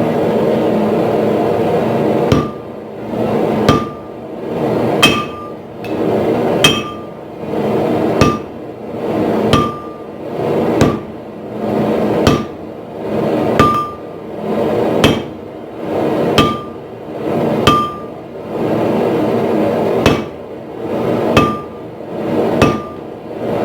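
Hand sledgehammer blows on hot steel on an anvil, about fifteen strikes at a steady pace of roughly one every second and a half, each with a short metallic ring, over a steady roar that runs throughout.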